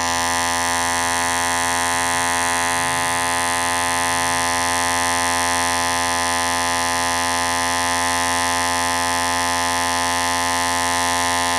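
Electric hair clipper running with a steady, even buzz that holds at one pitch.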